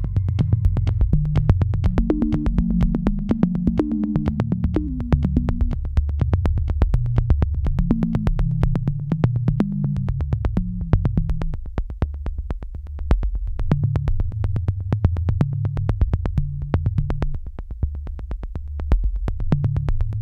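Electronic synthesizer music: a drum machine ticks a steady beat at about four hits a second over a low synth bass line and short keyboard phrases.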